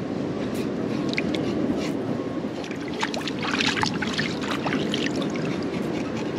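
Steady wash of seawater. A cluster of small clicks and rattles comes about three to four seconds in.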